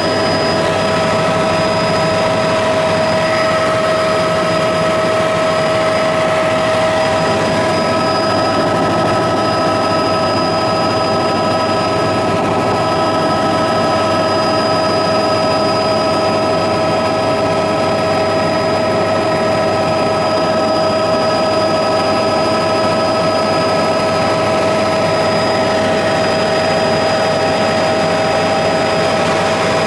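Aircraft engine running steadily, heard from inside the cabin: a constant rushing noise with several steady whining tones over it.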